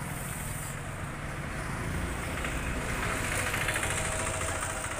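Street traffic with a motor vehicle engine running steadily, swelling louder about two to four seconds in as it comes close.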